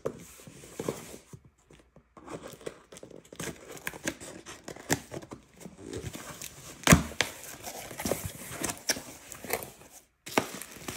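Packing tape being ripped off a cardboard box and the box flaps pulled open, an irregular run of tearing, crackling and cardboard scraping. The loudest snap comes about seven seconds in.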